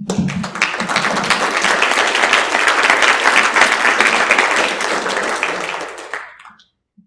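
Audience applauding, swelling over the first few seconds and then fading out about six seconds in.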